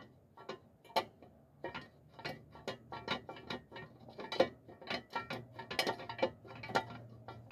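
Hand ratchet wrench clicking in short, uneven strokes, a few sharp metallic clicks a second.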